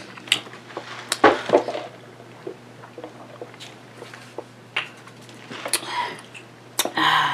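Small handling and mouth noises: scattered light clicks and knocks, a sip of soda through a straw from a paper fountain-drink cup, and a breathy exhale near the end.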